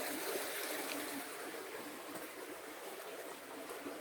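Stream water flowing and rushing steadily.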